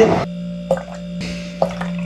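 Pickle juice being poured and dripping into red plastic cups, with two sharp drips about a second apart, over a steady low hum.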